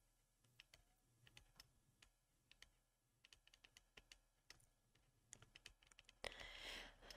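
Near silence with faint, scattered light clicks, irregularly spaced, and a brief soft rustle near the end.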